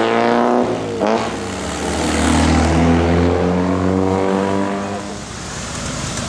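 Lotus Elan Sprint's twin-cam four-cylinder engine pulling away close by. The revs drop at a gear change about a second in, climb again, then ease off near the end.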